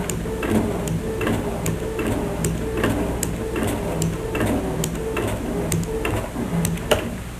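Pump of a hydraulic model of the circulation running, with a regular clicking a little over two a second over a steady low hum.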